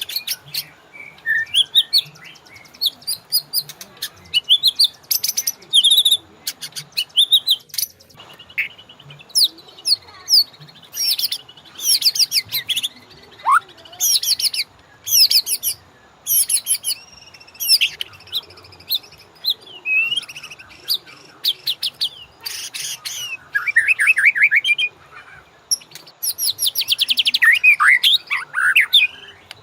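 White-rumped shama (murai batu) singing a loud, varied song: short phrases of whistles, fast trills and sliding notes, one after another with brief gaps between them.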